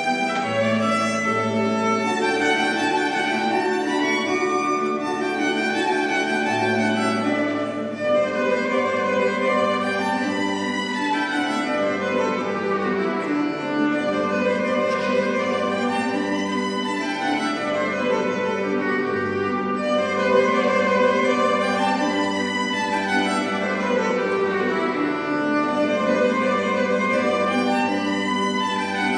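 A violin and two acoustic guitars playing a piece together, the violin bowed and the guitars plucked.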